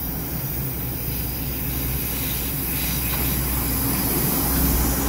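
Three-car DRC diesel railcar set approaching on the line, its diesel engines droning low with wheel-on-rail noise, slowly growing louder as it nears.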